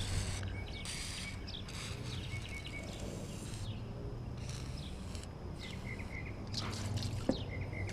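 Short hisses of an aerosol WD-40 lubricant spray, sprayed to quiet a clunk traced to the closed sunroof, with birds chirping in the background.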